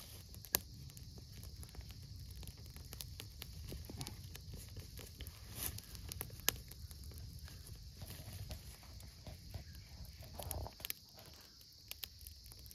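Small twig campfire crackling, with irregular sharp pops and clicks. Dry sticks rustle and knock as they are pushed into the flames.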